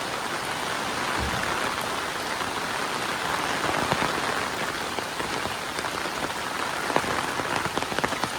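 Heavy rain falling steadily on surfaces, an even hiss with scattered sharper drop ticks.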